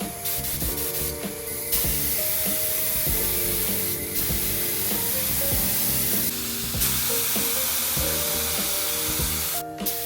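Background music with a simple melody, over a steady hiss that cuts out briefly near the end.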